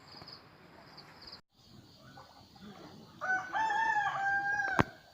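A rooster crowing once: a single call of about a second and a half, rising at the start and then held on a level note, cut off abruptly near the end. Faint high, evenly repeating chirping is heard in the first second or so.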